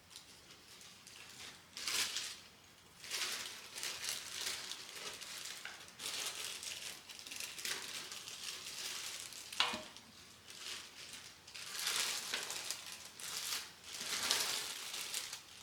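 Plastic food bags rustling and crinkling in irregular bursts as they are handled, with one sharp click about ten seconds in.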